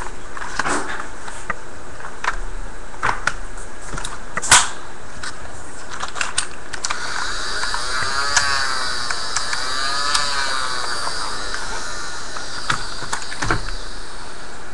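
Plastic clicks and rattles of a clip-modded Nerf Barricade blaster being handled, with one sharp snap about four and a half seconds in. From about halfway, its battery-powered flywheel motors whine, rising and falling in pitch twice.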